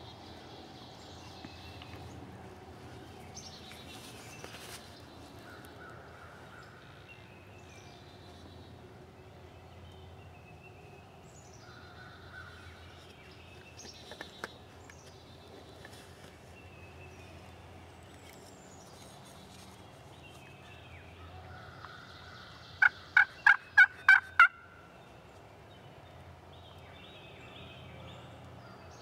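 Wild turkey calling: a quick run of about six loud, sharp yelping notes near the end, over faint songbird chirps.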